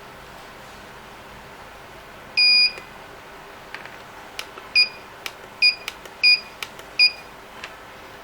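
Alarm panel keypad beeping as keys are pressed: one longer beep, then a run of four short beeps, with light clicks between them.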